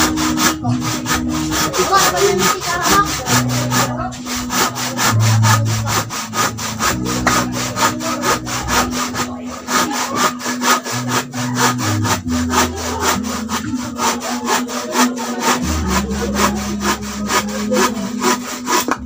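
Hand saw cutting through a wooden plank in quick, even back-and-forth strokes, about three or four a second, with background music underneath.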